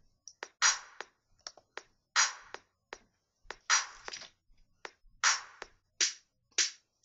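Sparse hip-hop style drum beat: a sharp snare- or clap-like hit about every second and a half, with lighter ticks between, as the intro to a rap jingle.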